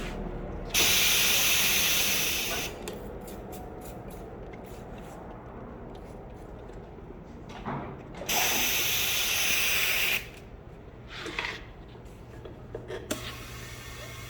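Compressed air hissing in two bursts of about two seconds each, with light clicks and handling noises between them.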